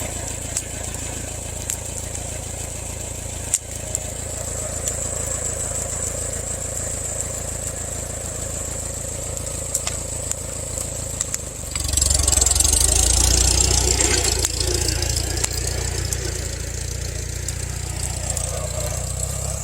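Farmall 140 tractor's four-cylinder gasoline engine running steadily. About twelve seconds in it gets louder for two or three seconds as it works harder, pulling on the stump, then settles back to a steady run.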